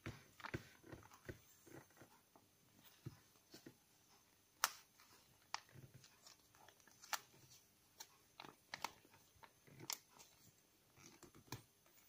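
Origami paper crinkling and crackling as fingers fold and press it: faint, irregular rustles broken by sharp little crackles, the sharpest about four and a half seconds in.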